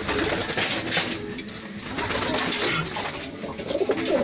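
Domestic pigeons cooing, low repeated coos that grow clearer near the end, with a loud rushing noise over the first second or so.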